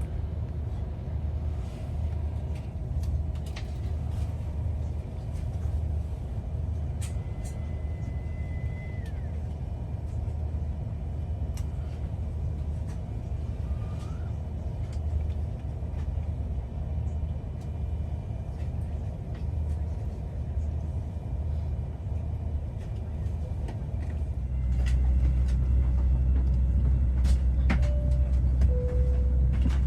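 Steady low rumble and hum inside an Airbus A330-300 cabin on the ground, which grows clearly louder about 25 seconds in. A short, steady high tone comes early on, and a brief two-note falling tone comes near the end.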